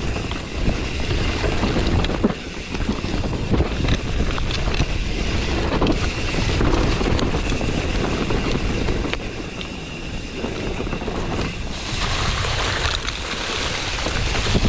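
Mountain bike riding fast down a dirt trail: wind rushing over the action camera's microphone, tyres on dirt, and the bike clattering with many short knocks over bumps.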